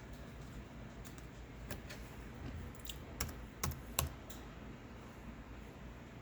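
Irregular keystrokes on a computer keyboard, a handful of scattered clicks mostly in the middle, over a low steady background hum.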